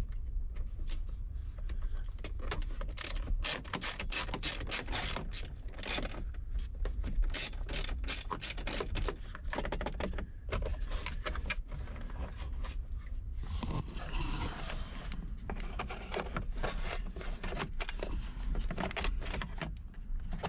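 Ratchet wrench with a 7 mm socket clicking in several quick runs, with pauses between them, as bolts on a car's center console are backed out.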